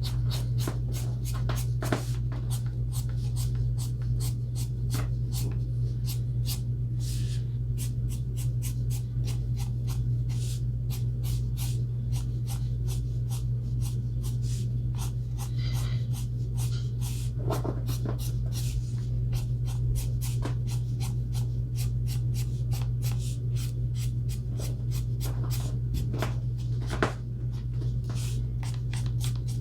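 Ohuhu alcohol marker nib scratching across paper in many short, quick coloring strokes, over a steady low hum.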